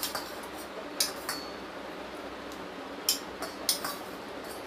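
Steel serving spoon clinking against a stainless-steel bowl and plate while curry is spooned out: about seven short, sharp metallic clinks at irregular intervals.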